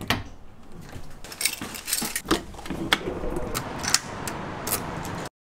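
Keys jangling on a keyring, with sharp clicks from a door's lever handle and a key turning in the front door lock as the door is locked.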